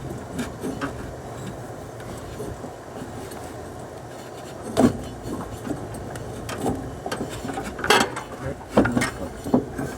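Hands working a rubber drive belt around the pulleys and belt guide of a riding mower's deck, with rubbing and handling noise. A few knocks and clunks come about halfway through and again near the end.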